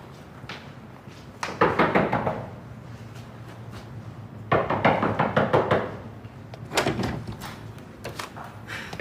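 Knuckles knocking on an apartment door in rapid bursts, three rounds of knocks with pauses between them.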